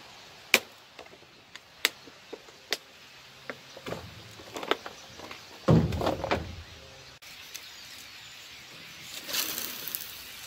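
Handling noise of fishing tackle in a metal boat: sharp single clicks in the first few seconds, then a cluster of knocks and rustles, loudest with a few deeper knocks about six seconds in. After that only a faint steady outdoor hiss remains.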